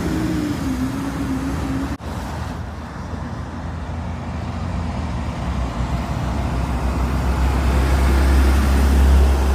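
Diesel truck engine idling steadily; after a sudden break about two seconds in, a deep low engine rumble that grows steadily louder.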